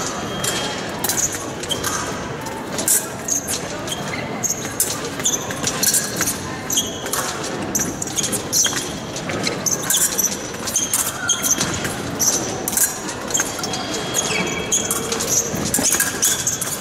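Footwork of two épée fencers on the piste in a bout: shoes squeaking and feet stamping and thudding, with many short sharp clicks throughout, echoing in a large hall.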